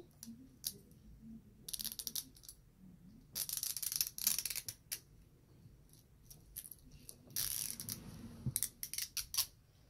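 Plastic wrapping on an L.O.L. Surprise ball crinkling and crackling as it is peeled and torn off by hand, in several bursts with scattered clicks, the longest about four seconds in.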